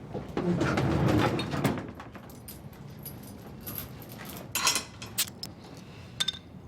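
Objects being handled and set down: a rustling stretch in the first second or two, then a few sharp clicks and knocks.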